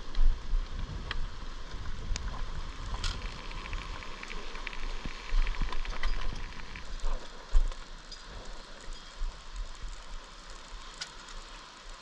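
Footsteps over loose beach boulders and stones: irregular clicks, knocks and scrapes of feet and carried gear on rock, under an uneven low rumble.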